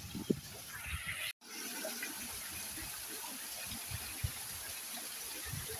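Steady rush of running or falling water with scattered faint ticks, after the sound drops out completely for a moment about a second in.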